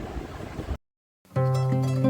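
Background music of plucked strings starts after a brief dead silence just under a second in, with sustained notes over a low bass. Before the silence there is only a steady hiss and rumble of background noise.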